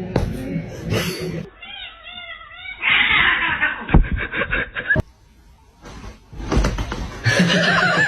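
A cat meowing in a quick series of short calls that rise and fall in pitch, followed by a louder stretch of noise.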